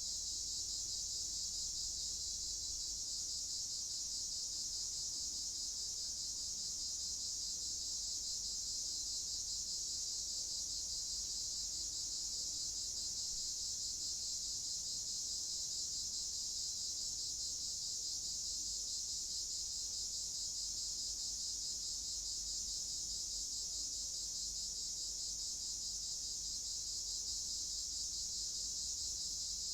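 Crickets chirping in a dense, steady chorus, a high-pitched shimmer that doesn't change, over a faint low rumble of night ambience.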